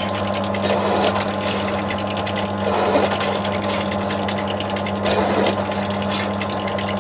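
Bench drill press motor running with a steady hum while a countersink bit deburrs the edges of drilled holes in a metal block, with a few short scraping passes as the cutter touches the hole edges.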